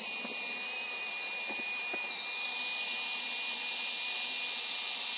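Drill-driven paddle mixer stirring a herbicide mix in a sprayer tank, the motor whining steadily at full speed, its pitch dipping slightly about two seconds in.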